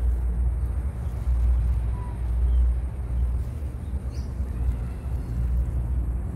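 Low, uneven outdoor rumble with nothing else clearly standing out.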